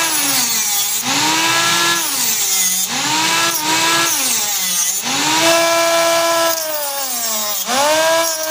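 Homemade mini table saw, a small circular blade driven through gears by 6-volt DC motors, whining as it cuts thin wood strips. The pitch sags each time a strip is pushed into the blade and climbs back as it clears, several times over.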